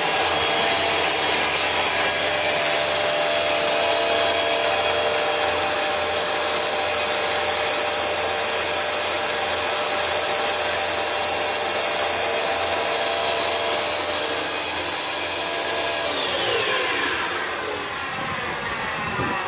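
Panhans sliding table panel saw running with nothing being cut, a steady whine over a dense hum. About sixteen seconds in, the whole sound falls steadily in pitch and fades as the saw winds down.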